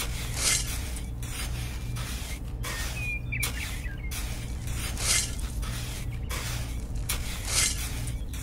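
Miniature metal shovel scraping furrows through fine sand, heard as a few short hissing scrapes over a steady low hum.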